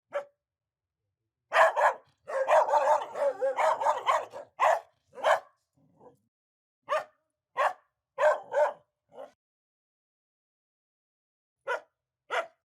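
Angry dog barking: a rapid flurry of barks in the first few seconds, then single barks spaced out, with two more near the end. The gaps between barks are dead silent.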